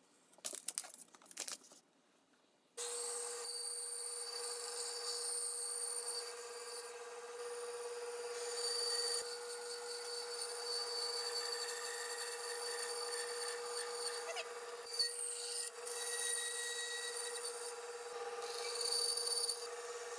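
Paper rustling and being folded for a couple of seconds. Then, about three seconds in, a band saw comes in abruptly and runs steadily with a constant hum and hiss as its blade cuts a thick wooden board along a curve.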